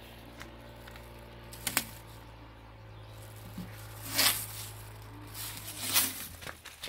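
Plastic masking film on its tape strip crinkling and rustling as it is pressed along a car's fender beside the headlight, with three sharper crackles, the longest about four seconds in. A steady low hum runs underneath and fades near the end.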